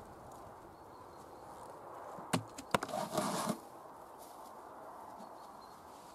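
Two sharp knocks a little after two seconds in, then a brief crinkly rustle as a bundle of white enviromesh insect netting is pulled out of a plastic bin and handled.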